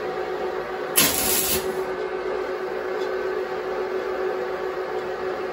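Arc welder's arc hissing and crackling steadily over a steady hum, with a louder sharp burst about a second in. Weld is being built up on the head of a seized, rusted blade screw, to heat it and give something to grip.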